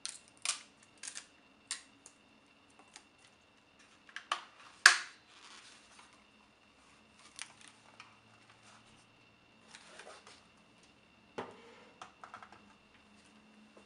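Unpacking noises as a plastic metal detector is lifted out of its cardboard box: scattered rustles of cardboard and paper and light plastic knocks and clicks, the loudest a sharp click about five seconds in.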